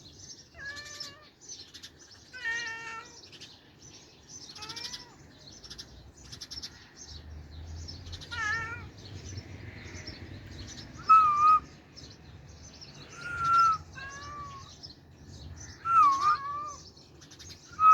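Domestic cat meowing repeatedly, about eight short meows spaced a second or more apart, some rising and falling in pitch. Birds chirp faintly throughout.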